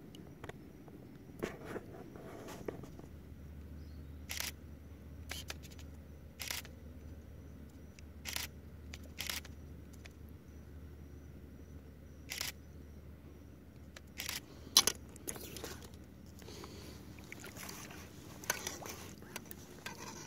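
Sharp clicks and taps at irregular intervals of one to two seconds, the loudest about fifteen seconds in, over a low steady hum that comes in about three seconds in; a soft rustling joins in the last few seconds.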